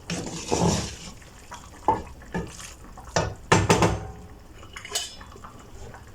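A utensil clinking and scraping against a cooking pan while pasta in a thick sauce is stirred, in a run of irregular knocks.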